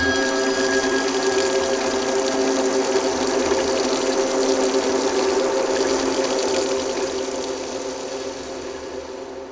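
Water running from a tap in a steady stream, over low steady droning tones. Both fade down over the last couple of seconds.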